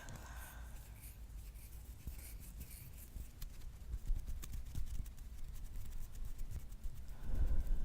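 Fingernails scratching on a palm close to the microphone: a run of light, irregular scratchy ticks, with a heavy breath at the start and another near the end.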